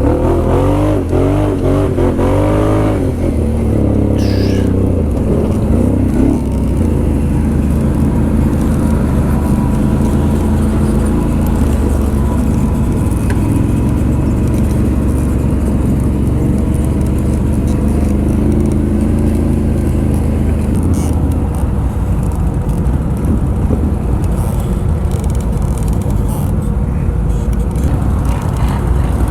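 ATV engine running as it is ridden, its pitch going up and down with the throttle in the first few seconds, then holding steadier.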